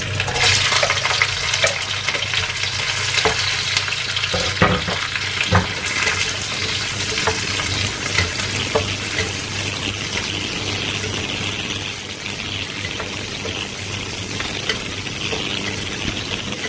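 Garlic, ginger and shallots sizzling in hot oil in a stainless steel wok, with the spatula scraping and knocking against the pan as they are stirred. The knocks are thickest in the first few seconds, over a steady low hum.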